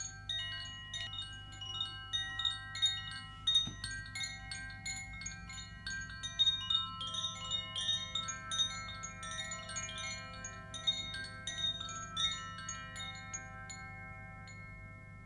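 Wind chimes tinkling in irregular, overlapping high ringing strikes over a low steady hum, thinning out toward the end.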